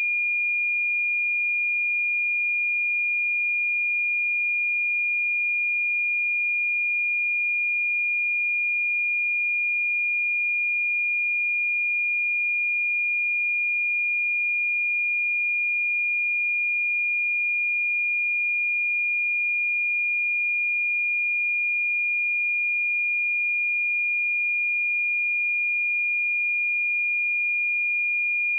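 A steady, unbroken 2422 Hz sine-wave test tone: one pure high-pitched note held at constant loudness.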